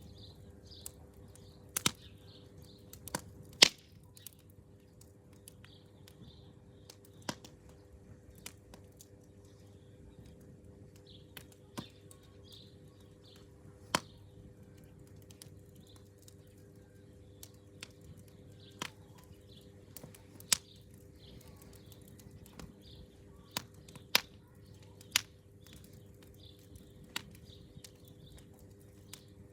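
Campfire crackling: sharp, irregular pops and snaps of burning wood, one every second or few seconds, over a quiet steady background.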